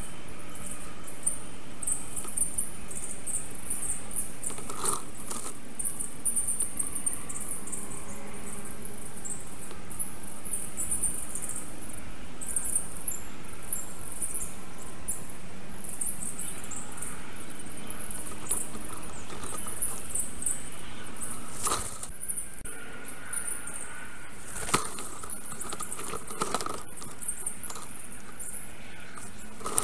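Forest sound from the nest camera, speeded up with the time-lapse: a dense, very high-pitched squeaky chatter of small birds calling around the black stork's nest. In the last third there are a few sharp knocks, the clearest about 25 seconds in.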